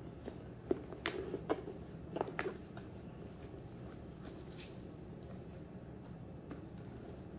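Hands handling a leather tote handbag: a few light clicks and small rustles in the first two and a half seconds, then a faint steady background.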